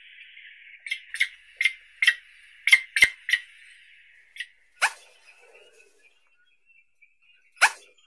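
Eurasian spoonbill calling: a quick run of short, sharp calls, about three a second, then single louder calls a few seconds apart. A steady high hiss underneath fades out about halfway through.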